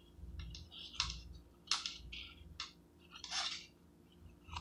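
Cardboard and paper wrapper of a refrigerated cinnamon roll dough can being torn and peeled off by hand: a string of short crackling rips and crinkles.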